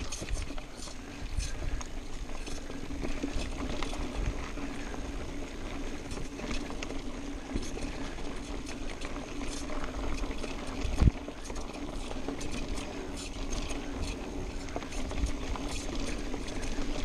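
Mountain bike rolling fast down a dirt singletrack: tyres on dirt, the bike's frame and parts rattling and clicking over the bumps, with a steady hum underneath and wind on the microphone. A hard thump about eleven seconds in.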